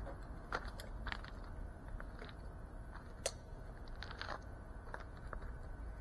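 Small clicks and scuffs from hands handling an FPV drone that rests on the ground, over a faint low rumble. The sharpest click comes a little past three seconds in.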